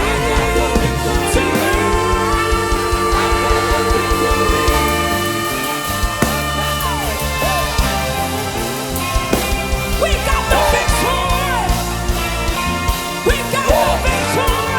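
Music: a band with sustained chords over a steady bass line, and a voice singing at times.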